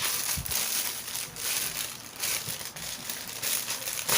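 Plastic shipping pouch crinkling and rustling as it is handled, in a series of short bursts.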